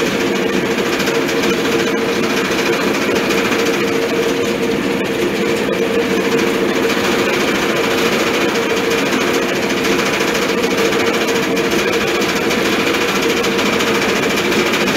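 Motor-driven grinding mill (molino) running as mole paste is fed through it: a loud, even mechanical drone at a constant pitch that does not change.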